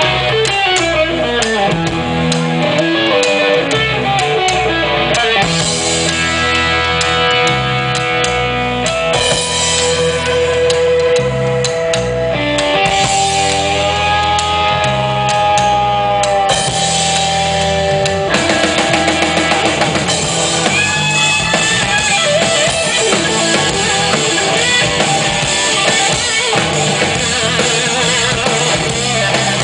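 Live blues-rock band playing: guitar over a drum kit, with long held notes bent in pitch about halfway through.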